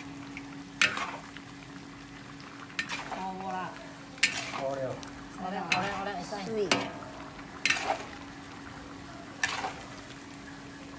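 Metal spatula stir-frying pork filling with dark soy sauce in a wok, scraping and turning it with a sizzle. Sharp clacks of the spatula striking the wok come every second or two.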